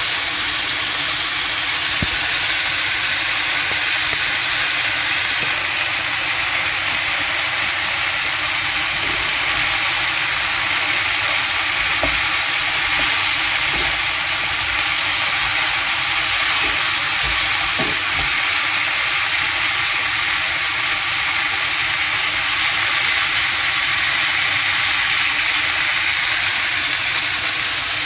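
Cherry tomatoes, zucchini and bell peppers sizzling steadily in oil in a frying pan over a gas flame, with a few faint knocks of a wooden spoon stirring them around the middle.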